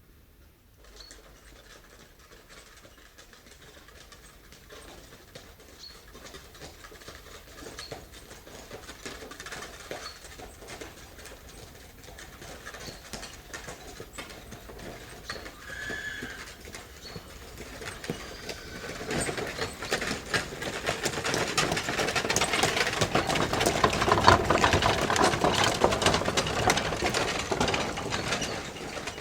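Horse-drawn stagecoach with a team of four horses: hooves clip-clopping with the carriage and its wheels rattling. It starts faint and grows steadily louder over the last ten seconds as it draws near.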